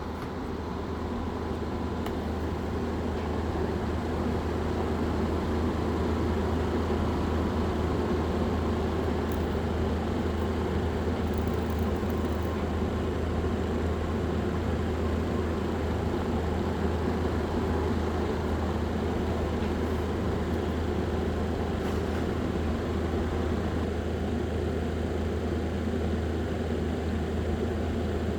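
Small electric fan motor of a homemade model air conditioner running with a steady hum, building up over the first few seconds and then holding steady.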